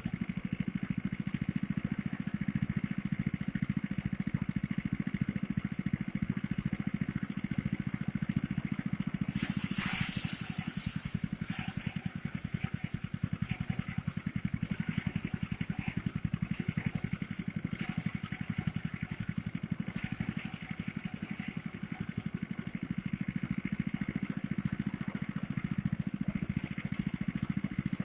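Small engine driving a rice thresher, running steadily with a fast, even drone. A short hiss cuts in about ten seconds in and lasts under two seconds.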